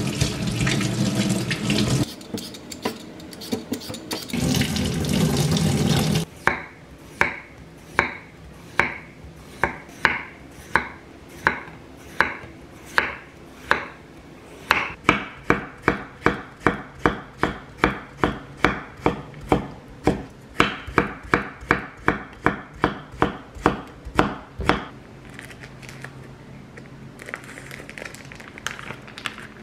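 Tap water running over a potato rinsed under the faucet, in two stretches. Then a kitchen knife slices the raw potato into rounds on a wooden cutting board: a long run of sharp, even knocks that speed up to about two a second halfway through and stop a few seconds before the end.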